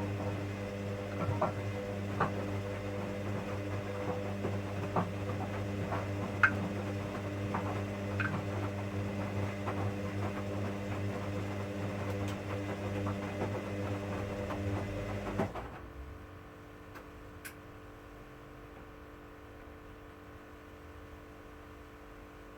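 Hoover washing machine running its wash cycle: a steady motor hum with light clicks and knocks from the tumbling drum, which stops suddenly about two-thirds of the way through, leaving a faint hum.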